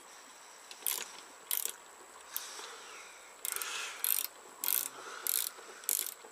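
Ratcheting wrench clicking in a series of short bursts, about one every half-second to second, as it turns the forcing screw of a gear puller on a small engine shaft.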